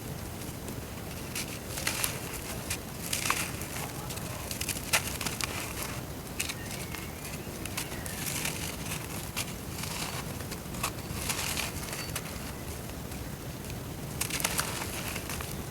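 Dry brown dirt clods crumbling and breaking apart in water, giving irregular crackling and crunching clicks with short fizzy patches.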